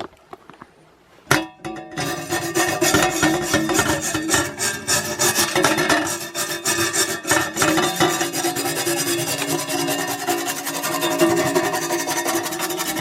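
Stiff parts brush scrubbing a wet, soapy carbide table saw blade, the bristles rasping rapidly across the resin-gummed teeth. It starts about a second and a half in and keeps up steadily.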